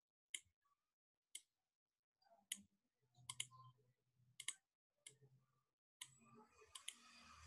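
Computer mouse button clicking: about ten sharp, faint clicks spread through a few seconds, some in quick pairs. A faint hiss of room noise comes up near the end.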